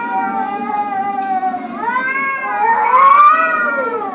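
Two angry cats caterwauling at each other in a fight standoff: long, wavering yowls that rise and fall in pitch. From about two seconds in, two yowls overlap and swell, loudest about three seconds in.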